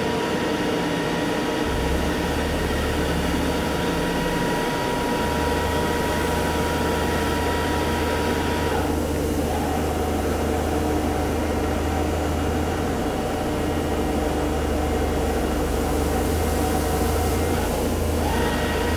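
Okamoto ACC-28-60EX column-type surface grinder running with its grinding wheel spinning: a steady machine hum with a high whine. The whine drops a little in pitch about halfway through and comes back up near the end. A deep hum sets in a couple of seconds in.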